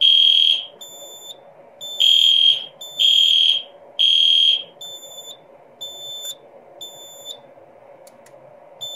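Fire alarm horns triggered by a pulled pull station, sounding a loud high-pitched pulsed tone about once a second. The horns stop about four and a half seconds in when Alarm Silence is pressed, leaving the fire alarm control panel's own quieter beep about once a second.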